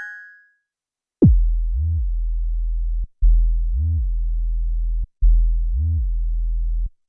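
Korg Minilogue XD synthesizer playing a deep bass patch: three held low notes of about two seconds each. The first opens with a fast downward pitch drop, and each note brightens briefly and then darkens again midway through.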